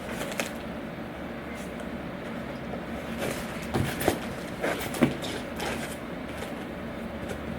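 A sealed cardboard box being handled and its packing tape cut with a knife: a few short scrapes and clicks, most of them past the middle, over a steady low background hum.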